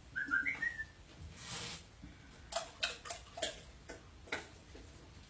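A dog's short high-pitched whimper in the first second, then a brief rustle and a run of light clicking taps.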